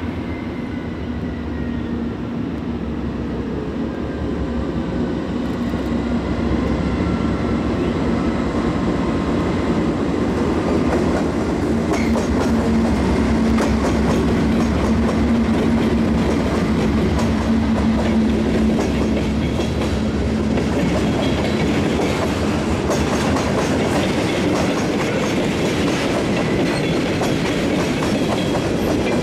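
A freight train led by two GE D9-44CW diesel-electric locomotives approaches and passes close by, their 16-cylinder engines running with a steady drone and growing louder over the first few seconds. The boxcars then roll past with wheels clicking over the rail joints.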